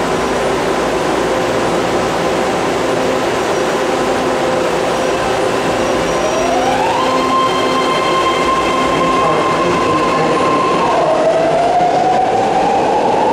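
A BART train's motors and equipment humming at the platform. About six seconds in, a whine rises in pitch and holds steady as the train starts to move. Near the end the whine drops and then climbs slowly again as the train gathers speed.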